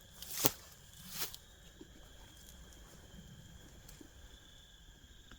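Two short rustling scrapes about a second apart, then a few faint ticks, over a faint steady high insect trill.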